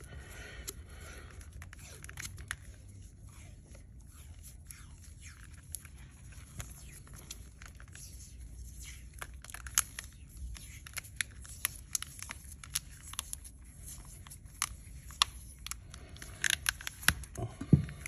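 Black vinyl electrical tape being pulled off its roll and wrapped tightly around a wire harness: faint peeling crackle with many scattered sharp ticks, busier in the second half.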